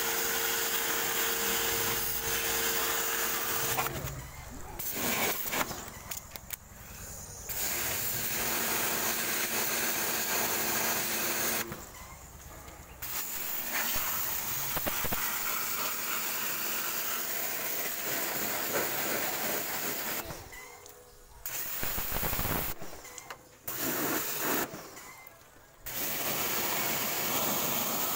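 Pressure washer jet spraying water into a car's AC condenser fins: a steady hiss that stops and starts again several times as the trigger is released and pulled.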